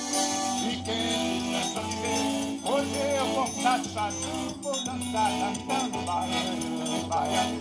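Live forró-style band playing: piano accordion over a beating bass drum, with a man singing along from about three seconds in.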